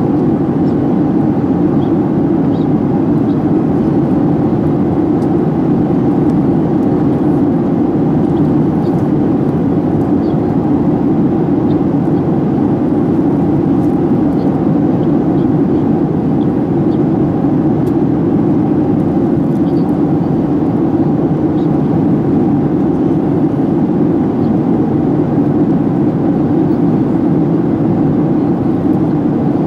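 Steady in-flight cabin noise of a Boeing 737-800, heard from a window seat by the wing: the drone of its CFM56 engines and the rush of air past the fuselage, unchanging throughout.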